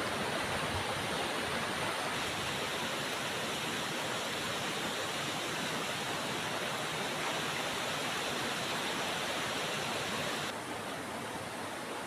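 Creek water rushing and flowing steadily, with no other sounds over it; it turns slightly quieter and duller about ten and a half seconds in.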